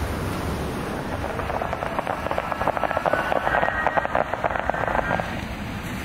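A ground-level firework throwing up sparks, crackling with rapid pops. It builds about a second and a half in and dies down near the end, over a low rumble.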